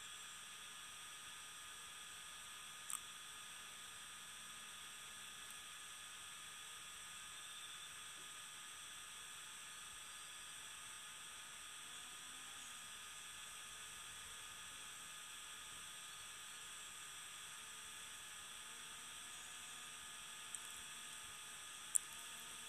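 Quiet background: a steady faint hiss with a thin, steady electronic hum or whine, broken by a few sharp clicks, one about three seconds in and two near the end.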